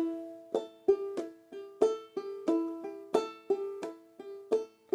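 Banjolele played clawhammer style in a slow, even eighth-note rhythm, alternating between the third and fourth strings. About three plucks a second, switching back and forth between two notes.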